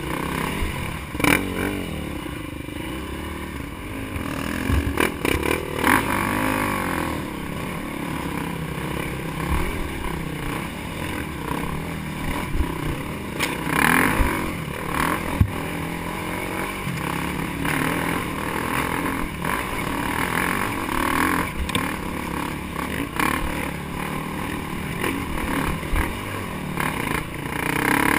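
Dirt bike engine running under load up a rough dirt climb, its pitch rising and falling with the throttle, with scattered knocks and clatter as the bike hits ruts.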